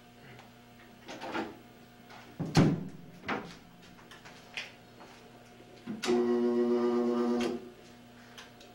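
A few knocks and clunks, then a loud, steady electrical buzz with a low hum for about a second and a half, which stops suddenly.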